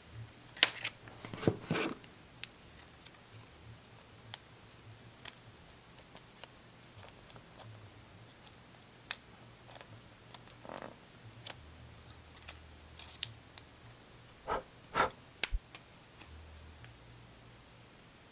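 Scattered light clicks, taps and short rustles from small adhesive button and port covers being peeled off their backing sheet and pressed onto a phone's frame, with a few louder handling noises near the start and about three-quarters of the way through.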